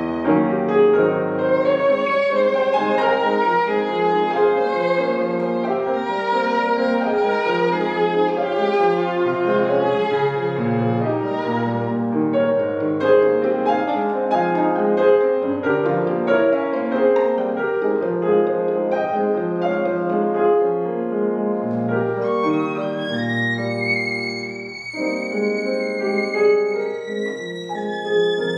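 Violin and grand piano playing a piece together. Near the end the violin climbs in a quick rising run to high held notes.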